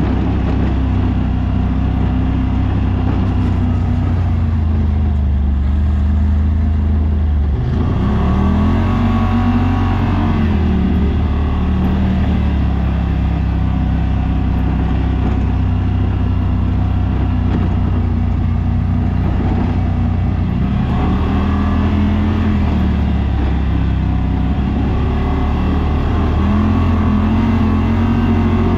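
Side-by-side UTV engine running at trail speed, its pitch rising and falling with the throttle, with an abrupt change in the sound about a quarter of the way in.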